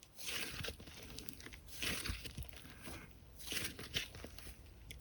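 Hands squishing and kneading slime: crinkly, crackling swells about every one and a half seconds, with small pops and clicks between them.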